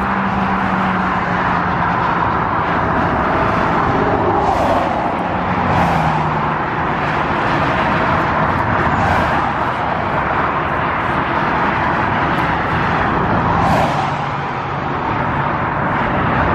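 Steady motor-vehicle noise, even throughout with no clear starts or stops.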